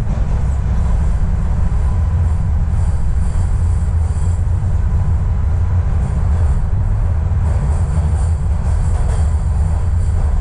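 TTC Line 1 subway train running between stations, heard from inside the car: a loud, steady low rumble of the wheels on the rails, with a faint steady tone and a high hiss over it.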